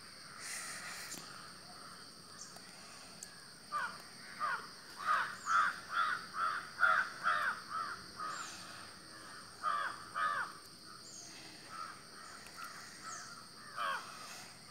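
A bird calling outside: a run of about a dozen short harsh calls in quick succession, with one more call near the end.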